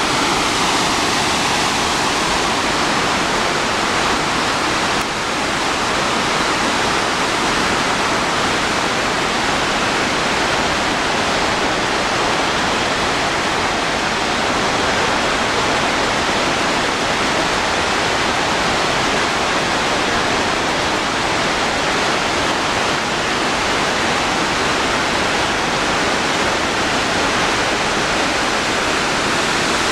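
Iguazu Falls' cascades pouring: a loud, steady rush of falling water, with a slight dip about five seconds in.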